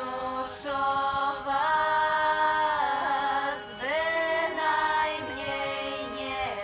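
Background music: a slow song with long held sung notes, a new note sliding in about every two seconds, over a steady drone.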